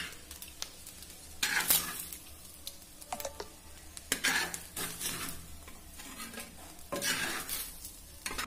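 A spoon stirring and scraping fried rice in a hot clay pot, three brief scraping strokes a few seconds apart, with small clicks between and a light sizzle underneath.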